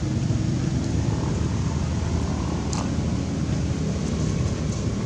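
Steady low rumbling noise, with a short sharp click about three seconds in.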